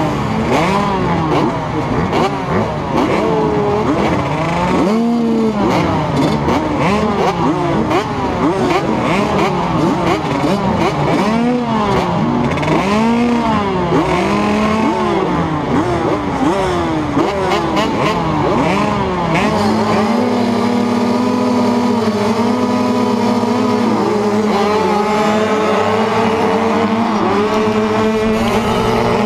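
A gate full of 85cc two-stroke motocross bikes revving, many engines blipping up and down over one another. About twenty seconds in, one engine close by takes over with the revs held high and steady as the pack launches off the start.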